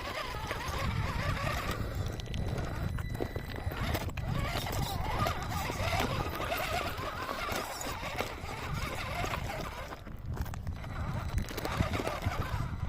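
Electric motor and gearbox of a 1/10-scale RC rock crawler whining and wavering as it crawls slowly over rocks, with occasional knocks of tyres and chassis on stone.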